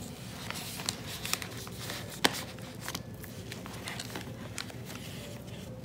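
Paper being handled: light rustles and small clicks as the pages and paper tags of a handmade junk journal are lifted and turned, with one sharper tap about two seconds in, over a steady low room hum.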